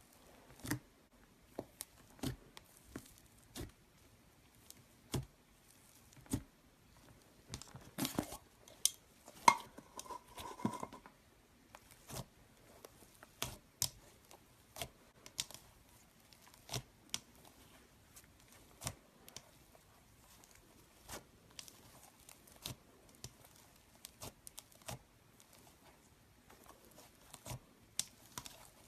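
Slime being pressed and stretched by hand, giving scattered sharp pops and clicks, with a denser run of crackling about eight to eleven seconds in.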